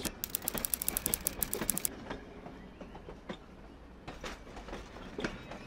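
A fast run of sharp mechanical clicks, about ten a second, for the first two seconds, then a train running on rails: a steady rumble with occasional single clicks.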